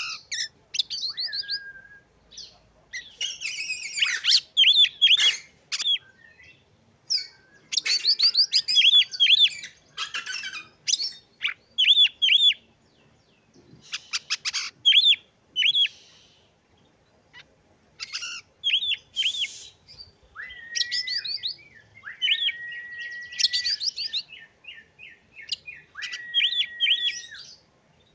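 Oriental magpie-robin (kacer) in full, varied song: fast runs of repeated chirps and short harsh rasping notes, then several long level whistles in the second half.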